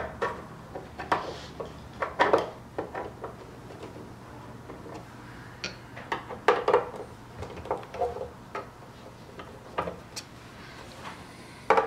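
Flathead screwdriver loosening screws in a metal instrument faceplate: irregular clicks and short scrapes of the steel tip in the screw heads, with pauses as it moves from screw to screw.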